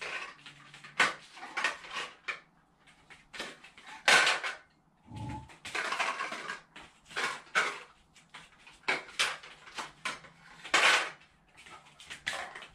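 Plastic stacking rings clacking and knocking as a dog picks them up off the floor mat and drops them onto a ring-stacker pole: a string of sharp clatters, with a duller thud about five seconds in.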